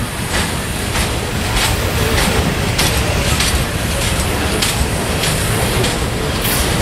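Train rolling past: a steady rumble with its wheels clacking on the rails, a clack about every half second to second.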